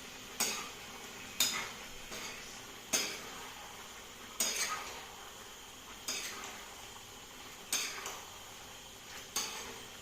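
A spoon stirring chicken in a cooking pot, knocking and scraping against the pot seven times at uneven intervals of about one to one and a half seconds, over a steady faint sizzle of frying meat and spice paste.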